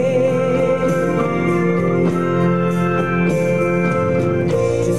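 Live country band music: a slow song with sustained, steadily held chords.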